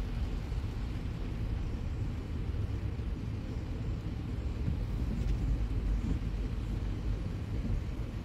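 Steady low rumble of a car heard from inside its cabin while driving in slow traffic.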